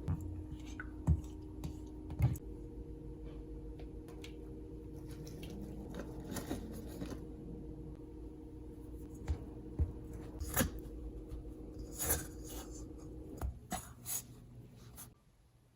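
Small kitchen handling sounds: scattered clicks, taps and rustles of ingredients and utensils being worked by hand. They sit over a steady low hum that stops near the end.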